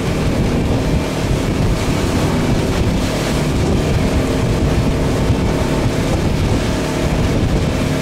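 Motorboat running under way across choppy water: a steady engine drone mixed with water rush and wind buffeting the microphone.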